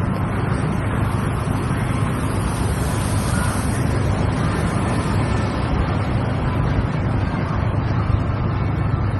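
Steady low rumble of a car running, mixed with wind noise on the microphone.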